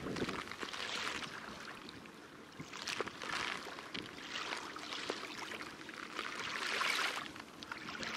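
Water sloshing and splashing in a collapsible bucket as hands work in it. It comes in several swells with small clicks.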